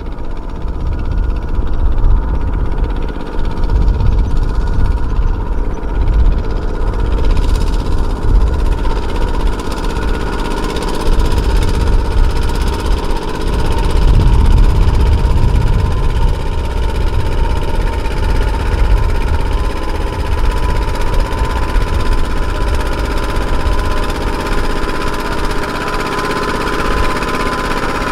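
Kubota RT120 two-wheel tractor's single-cylinder diesel engine chugging steadily under load, pulling a loaded trailer through deep mud.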